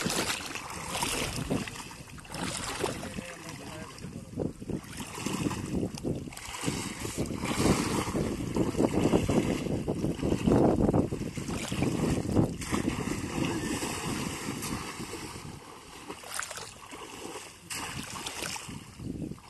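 Shallow water sloshing and splashing as people wade through a flooded field and push bamboo polo fish traps down into the water, coming and going unevenly, with wind rumbling on the microphone.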